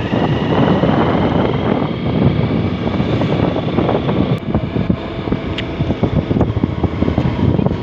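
Wind buffeting the camera microphone: a loud, uneven rumble and rush.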